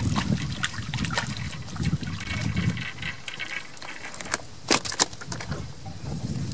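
Fishing reel on a float rod cranked in while a small fish is brought in and swung out of the river, giving a run of irregular clicks and rattles with two sharper clicks about five seconds in. Water lapping and a low rumble underneath.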